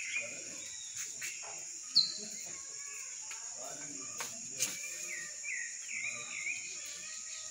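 Birds calling over a steady, high-pitched drone of insects such as crickets. A sharp falling bird note about two seconds in is the loudest sound, and a run of chirps comes about two thirds of the way through.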